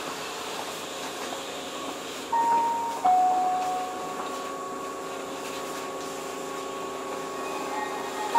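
A two-note falling chime rings about two seconds in. It sounds over the steady hum of a stopped Keihan 3000 series electric train. The chime starts again at the very end.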